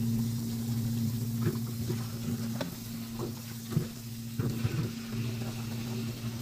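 Tap water pouring into a steel bowl of boiled goat meat in a stainless-steel sink, with hands rubbing and turning the wet chunks and a few short knocks and splashes against the bowl, over a steady low hum. The meat is being washed in cold water after parboiling.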